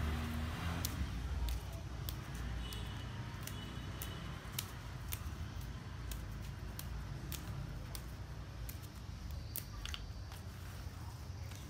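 Hands plucking basil leaves from their stems, the stems giving small sharp snaps at irregular intervals, with leaves rustling. A low steady rumble runs underneath.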